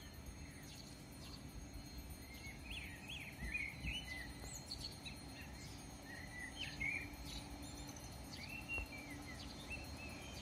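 Small birds chirping in short, scattered calls over a faint low rumble of background noise.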